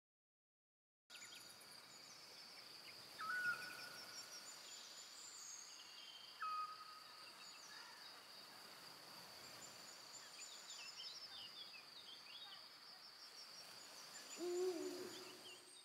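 Faint woodland night ambience: a steady high insect trill with scattered small bird chirps, two short whistled notes about three seconds apart, and a lower hooting call near the end, the loudest sound.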